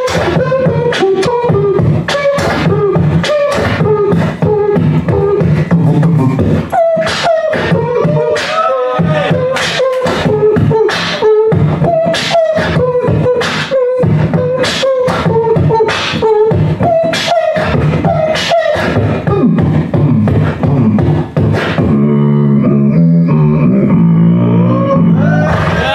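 Human beatboxing amplified through a handheld microphone: a fast, steady beat of sharp mouth-made drum hits with a hummed melody riding over them. About four seconds before the end the drum hits drop out, leaving a sustained low buzzing bass line that slides in pitch.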